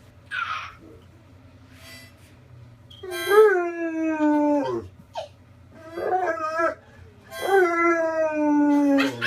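A dog howling: three drawn-out, wavering howls, the last the longest, with a short breathy huff about half a second in.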